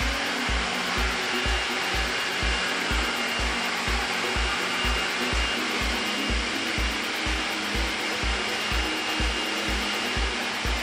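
Forced-air pet dryer blowing a steady rush of air through its hose nozzle while drying a dog's coat. Background music runs underneath, with a steady thumping beat a little over two beats a second.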